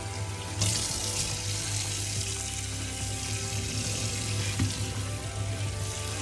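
Kitchen tap running steadily into a sink while a knife and cutting board are washed.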